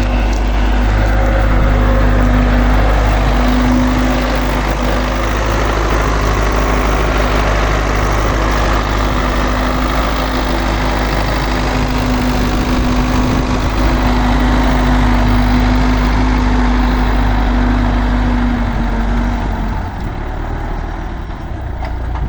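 MTZ-80 (Belarus) tractor's diesel engine running steadily at low revs, getting quieter near the end.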